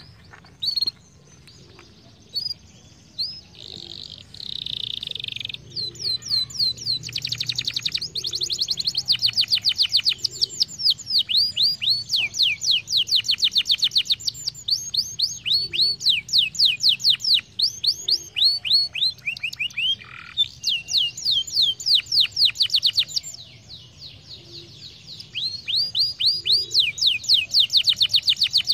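Domestic canary singing: a few separate chirps and a buzzy note at first, then long runs of fast trills made of quickly repeated sweeping notes, with a short break about three-quarters of the way through.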